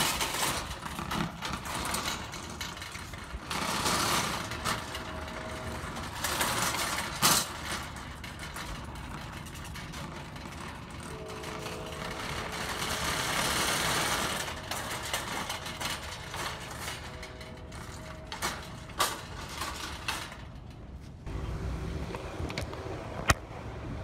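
Shopping cart rattling and clattering as it rolls across parking-lot pavement, with frequent knocks and louder spells. A faint chord of steady tones comes and goes a few times.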